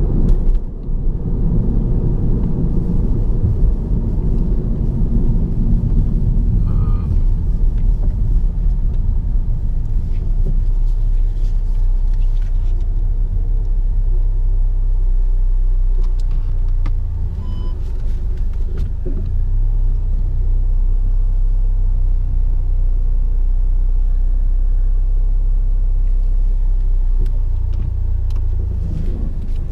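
A 2015 Audi TT's 2.0 TFSI turbocharged four-cylinder and road noise heard from inside the cabin while driving: a steady low rumble.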